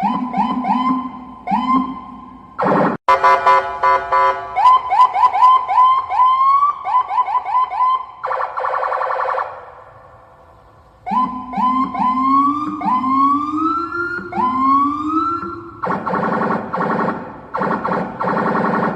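Police car electronic siren cycling through its tones: quick runs of short rising whoops, several a second, then slower whoops that climb higher, broken by blasts of a harsh buzzing horn tone. About halfway through the siren dies away for a moment before starting again.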